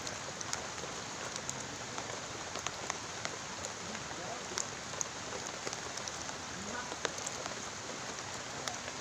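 Steady rain falling, with many separate sharp drop hits scattered through an even hiss.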